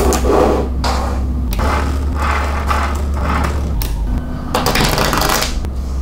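Small magnetic balls clicking and rattling together in bursts, over background music with a steady bass line that changes note a few times.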